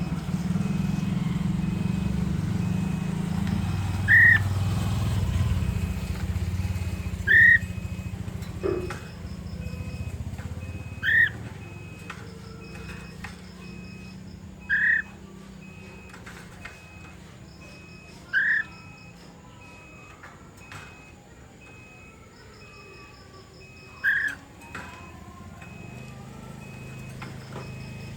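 Poksay mandarin (laughingthrush) giving six short, loud whistled calls, each one brief note, repeated about every three to four seconds. A low rumble underlies the first third and then fades.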